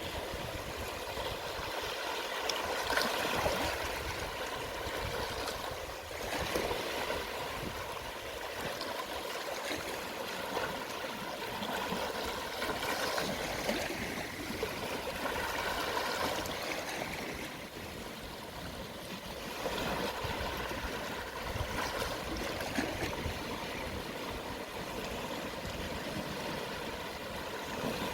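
Gentle sea waves washing onto the shore at low tide: a steady rush of water that swells softly every few seconds.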